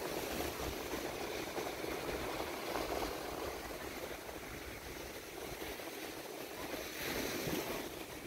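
Small ocean waves breaking and washing up a sandy beach as a steady rush of surf, swelling about seven seconds in, with wind rumbling on the microphone.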